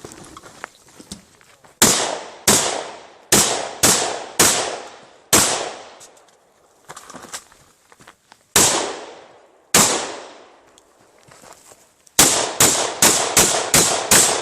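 Shotgun shots fired in a course of fire, each a sharp crack with a short echoing tail. About six come at an uneven pace, then two more after a pause, then a fast run of about seven shots, roughly three a second, near the end. Fainter clicks and knocks come between the strings.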